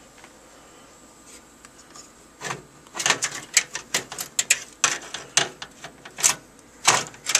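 Near quiet for about two and a half seconds, then a quick run of sharp clicks and light knocks: a motherboard being set down and fitted into a computer case.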